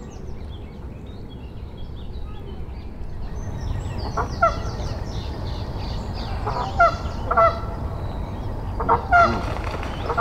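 Geese honking: a handful of loud, short calls starting about four seconds in, with faint higher chirps from smaller birds throughout.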